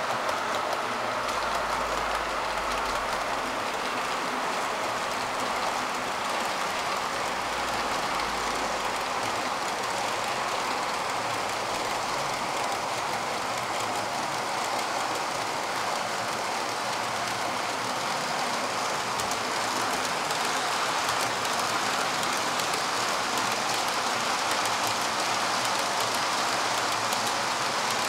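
OO gauge model oil tank wagons rolling past on the model railway track, a steady rolling rattle with fine ticking from the wheels.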